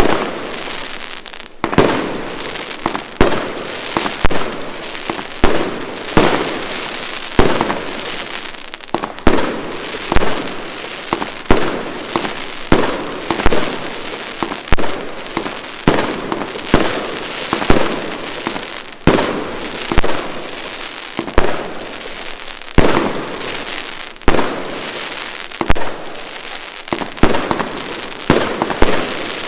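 Hallmark Fireworks Queen's Gambit, a 108-shot firework cake, firing shot after shot, roughly one sharp bang a second, with a dense crackling hiss between the shots.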